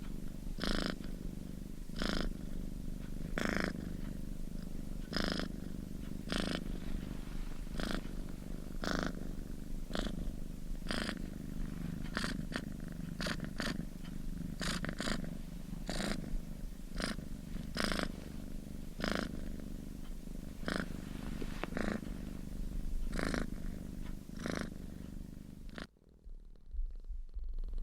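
Domestic cat purring close up: a continuous low rumble with a breathy surge about once a second as the cat breathes in and out, a sign of a relaxed, contented cat.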